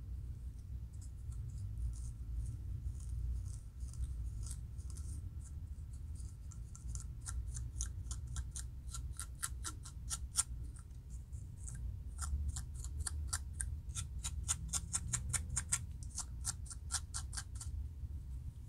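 Close-up scratching of a dry, flaky scalp between locs with a plastic hand tool, lifting dandruff. The strokes are sparse and faint at first, then come quick and regular at about four or five a second from about seven seconds in, over a steady low rumble.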